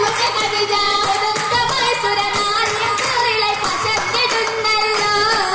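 Group of girls singing an oppana song (Mappila song) in chorus, with rhythmic hand-clapping keeping time.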